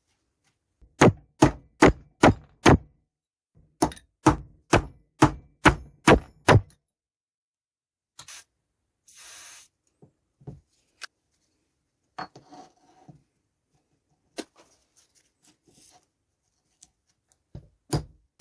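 Hammer blows struck in two quick runs, about five and then about seven, at two to three a second. They are followed by a brief rushing noise and some light clinks and rattles, and more blows start near the end.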